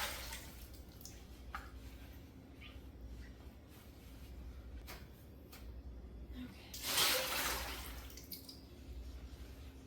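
Water running briefly into a sink about seven seconds in, among a few light clicks and knocks of kitchen handling.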